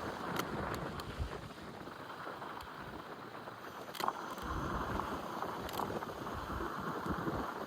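Dualtron Thunder 2 electric scooter being ridden on new 100/55-6.5 tyres: steady tyre and road noise with wind, broken by a few sharp knocks, the loudest about four seconds in.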